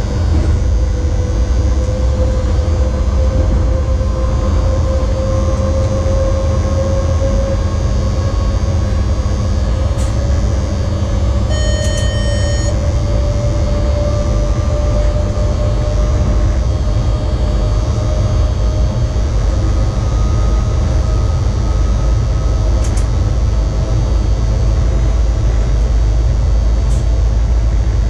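Inside an electric locomotive's cab on the move: a steady heavy running rumble, with a motor whine slowly rising in pitch as the train gathers speed. About twelve seconds in, a short electronic beep sounds from the cab equipment.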